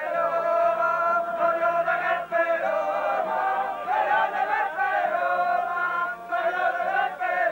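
A group of voices singing or chanting together in sustained, held notes.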